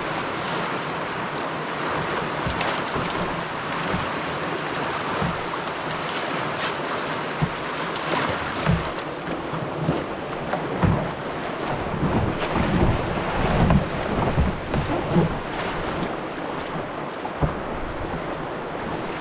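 River rapids rushing steadily around a canoe, with wind buffeting the microphone. Irregular low thumps come and go through the second half.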